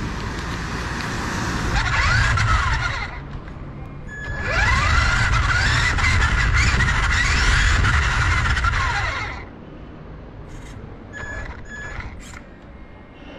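Remote-control toy car driving over brick paving: the electric motor whines up and down in pitch over a rattling rolling noise, in two runs with a short lull between, stopping about two-thirds of the way through. After it stops, a few short high tones sound briefly.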